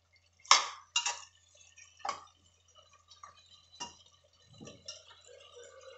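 Steel spoon clinking and scraping against the inside of a hard-anodised pressure cooker while a thick, wet chicken masala is stirred: about six sharp clinks, the loudest about half a second in.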